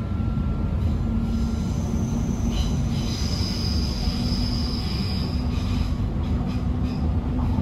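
Rumble of a Queensland Rail electric suburban train running, heard from inside the carriage, with a steady low hum. A high-pitched wheel squeal rises over it from about one second in and fades out a little after halfway, followed by a few faint clicks near the end.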